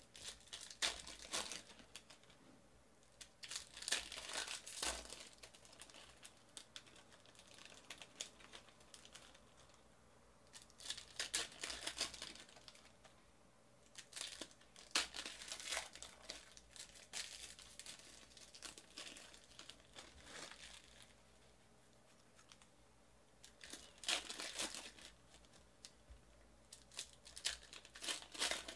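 Plastic trading-card pack wrappers being torn open and crinkled, in irregular bursts of rustling every few seconds.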